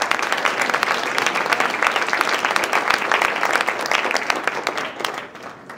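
Audience applauding, many people clapping at once, fading out near the end.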